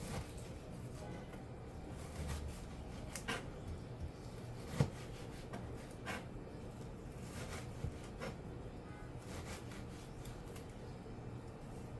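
Kitchen knife slicing sweet pepper on a plastic cutting board: soft, irregular taps as the blade meets the board, one louder knock about five seconds in.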